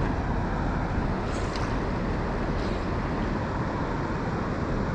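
Steady rush of river current, an even noise with no breaks, with some low wind rumble on the microphone.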